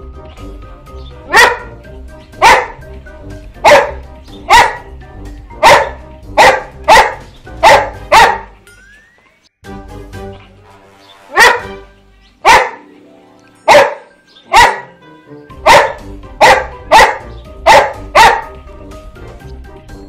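A boxer dog barking: loud single barks in quick runs, about eighteen in all, with a pause of a few seconds near the middle. Background music plays underneath.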